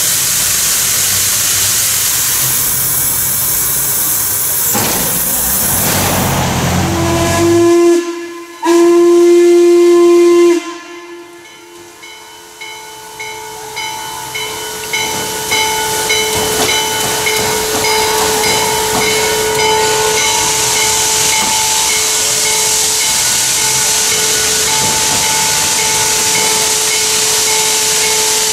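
Chesapeake & Ohio 1309, a 2-6-6-2 articulated Mallet steam locomotive, venting steam with a loud hiss, then blowing its steam whistle in two blasts, the second longer, about eight seconds in. After a quieter spell its bell rings steadily, about once a second, over continuing steam hiss as it moves off.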